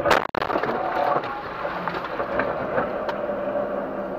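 Car collision: a loud crash of crumpling metal and plastic at the start, then steady engine and tyre noise of a car driving on a wet road.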